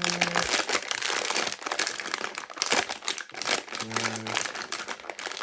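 Blind-box packaging being handled and crumpled: a dense, continuous run of crinkling crackles.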